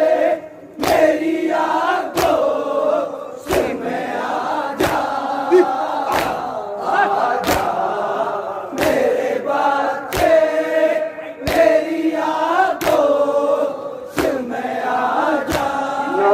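A crowd of Shia mourners chanting a noha together while doing matam. Their hands strike their chests in unison in a steady rhythm of loud slaps, a little over a second apart.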